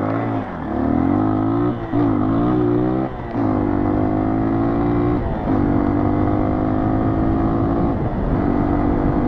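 Four-stroke dual-sport motorcycle engine pulling away and accelerating through the gears. Its pitch climbs and drops back at each upshift, four times over, then it runs steady in the higher gears.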